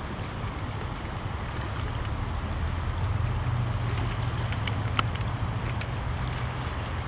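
Shallow creek water running over a gravel riffle, a steady rushing noise, with a low rumble of wind on the microphone. A couple of small clicks come about five seconds in.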